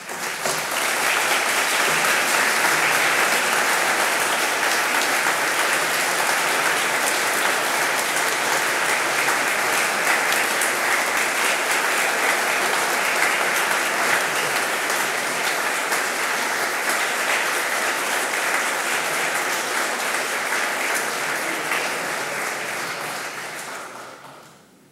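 Audience applauding, a dense steady clapping that starts abruptly, holds for over twenty seconds, and dies away near the end.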